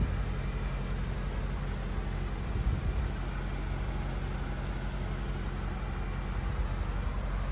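Mercedes-AMG GT 63 S 4-door's twin-turbo V8 idling with a steady low rumble.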